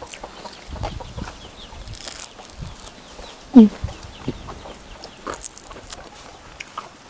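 Chickens clucking close by, with one loud, short squawk falling in pitch about three and a half seconds in, over small clicks of fingers picking apart fried salted fish.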